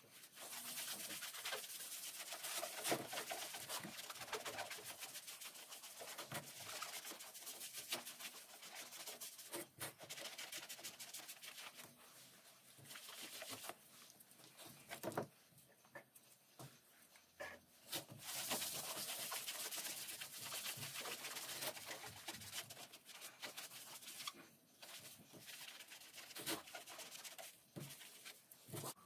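A sponge rubbing leather dye onto a vegetable-tanned leather panel on a wooden workbench: stretches of soft scrubbing with short pauses between.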